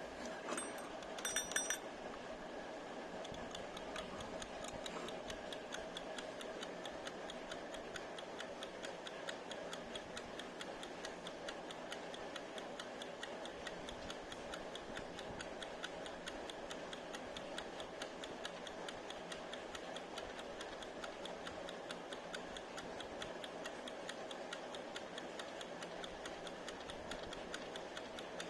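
Wind-up kitchen timer running with rapid, even ticking; this is a timer whose bell fails to ring. About a second in there is a brief, louder metallic sound, the loudest moment.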